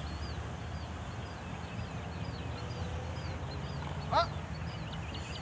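Birds chirping repeatedly over a steady low rumble, with one loud, short call about four seconds in.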